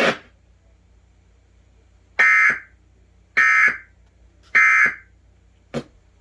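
Emergency Alert System end-of-message data burst: three short, identical screechy bursts of digital data tones about a second apart, marking the end of the warning broadcast. A brief click follows near the end.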